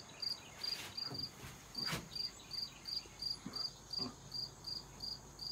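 A chirping insect calling in a steady rhythm of about three high chirps a second, with a couple of faint knocks about one and two seconds in.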